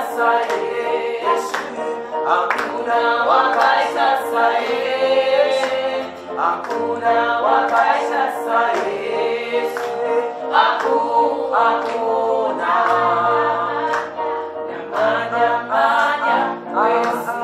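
Church choir singing a Shona gospel song, women's voices to the fore, over a steady low bass line with sharp percussive hits keeping the beat.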